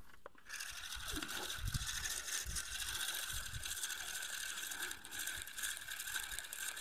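Spinning reel on a feeder rod clicking rapidly and continuously as line is pulled off the spool: the run of a biting fish, likely a carp.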